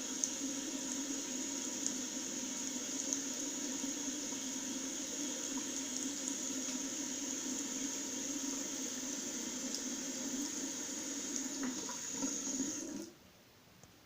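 Tap water running steadily into a washbasin, which cuts off suddenly near the end.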